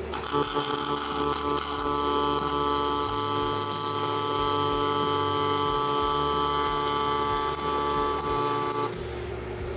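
MIG welding arc running on the steel frame of a tube bender, a steady buzzing noise with a hum through it, cutting out about nine seconds in.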